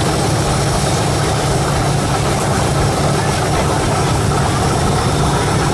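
A motor running steadily: a constant low hum with a hiss over it, unchanged throughout.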